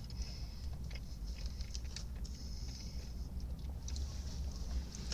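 Steady low background rumble with faint, scattered light clicks and rustles.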